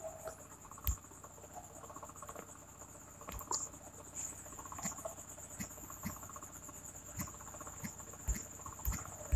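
Background insects chirring: a steady high-pitched pulsing trill with a fainter lower pulse under it, and a few scattered soft taps and knocks.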